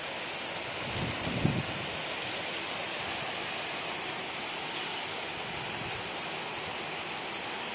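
Heavy downpour of rain, a steady hiss of falling water, with a few low gusts of wind buffeting the microphone, the loudest about a second and a half in.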